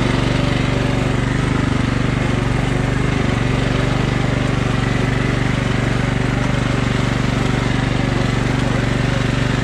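Riding lawn mower's engine running steadily as the mower is driven through muddy ruts.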